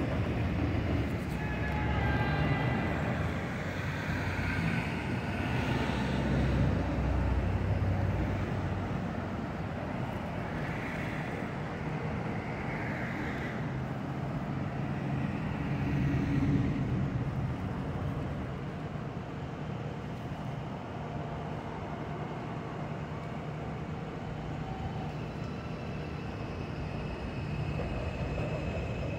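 R142 subway train running along an elevated steel line, a steady rumble with faint whining tones near the start, mixed with street traffic noise.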